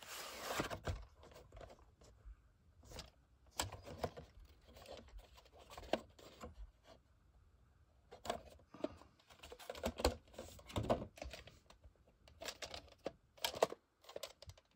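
Handling noise from a VHS tape: the black plastic cassette slid out of its cardboard sleeve and turned over in the hands, with irregular light clicks, taps and rustles of cardboard and plastic.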